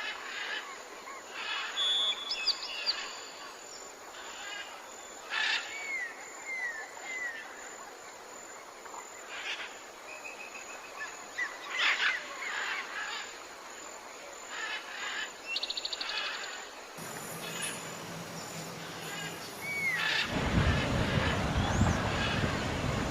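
Several birds calling: short chirps, down-slurred whistled notes and brief rapid trills over a steady outdoor hiss. Near the end a loud rushing noise comes in.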